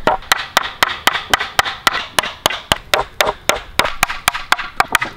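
Hammer driving nails into a wooden plank: rapid, even blows, about four a second.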